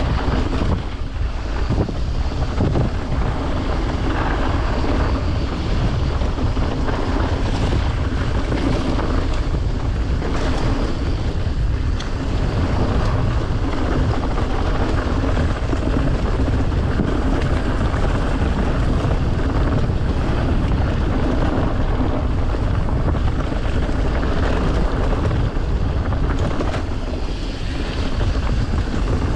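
Steady wind rumble buffeting the microphone of a riding mountain biker's camera, mixed with the bike's rattle and tyre noise on the trail.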